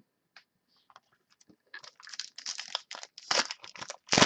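A trading-card pack wrapper being torn open and crinkled by hand, in quick crackling bursts that start about a second and a half in after a few faint ticks.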